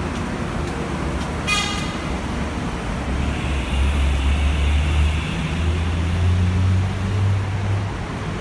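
Steady city road traffic, with a short high-pitched toot about a second and a half in. From about three seconds in, a heavy vehicle's low engine rumble swells and fades near the end.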